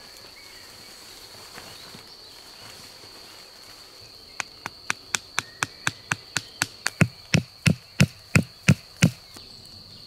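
A wooden tarp stake being knocked into the ground: a quick, even run of about eighteen knocks at roughly four a second, starting a few seconds in and growing heavier near the end. Crickets chirp steadily in the background as a high, unbroken tone.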